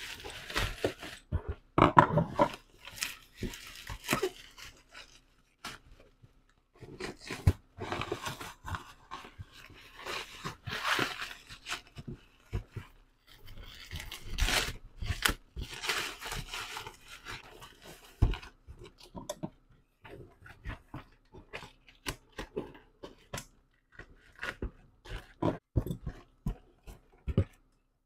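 Black plastic bubble-wrap mailer crinkling and tearing in bursts as it is cut with scissors and pulled off a cardboard box. After that come sparser snips and taps as scissors cut the packing tape on the box.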